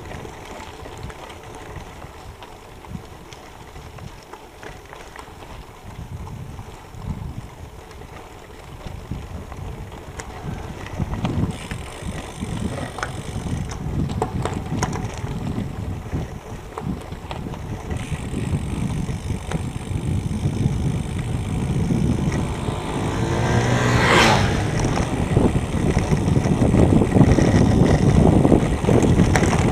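KTM Revelator road bike rolling on a loose gravel road: tyres crunching and the bike rattling over the stones, with wind buffeting the microphone, growing steadily louder as speed builds. About three-quarters of the way in, a brief high sound slides quickly down in pitch.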